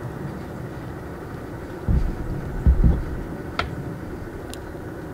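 Steady low outdoor rumble with a few dull low thumps about two and three seconds in, then a sharp click.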